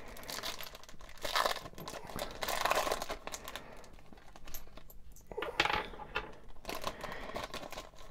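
Foil booster-pack wrapper crinkling and tearing as it is handled and opened, with a metal medallion clinking out of the pack a little past halfway.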